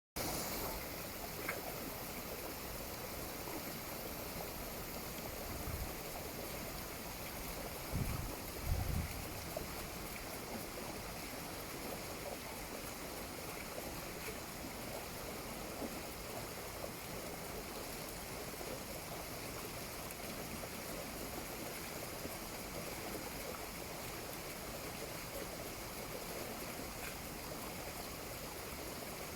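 Water wheel turning in a stream, with a steady rush of running and splashing water. A couple of low bumps come about eight and nine seconds in.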